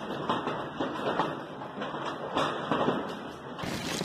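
Heavy hail coming down, a dense irregular clatter of hailstones striking the ground and hard surfaces. Near the end the sound changes abruptly to a steadier rush of storm noise.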